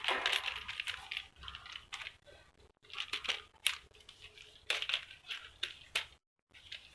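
Irregular crackling and rustling, like something being crumpled or handled, with sharp clicks in between and short pauses.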